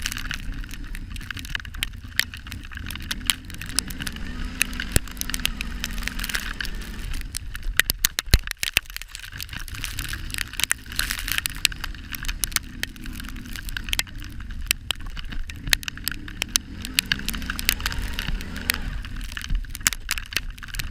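Kawasaki Brute Force 650 ATV's V-twin engine running with a low rumble while plowing snow, under a dense crackling and clicking. About eight seconds in the rumble dips briefly and a few louder clicks stand out.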